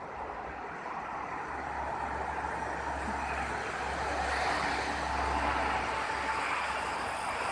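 A road vehicle going past: a low engine rumble under a wash of road noise that swells to a peak midway and then eases off.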